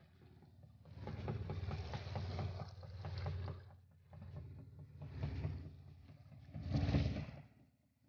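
Wind buffeting the microphone and small waves washing over beach cobbles, a rumbling noise that comes in surges and is loudest about seven seconds in.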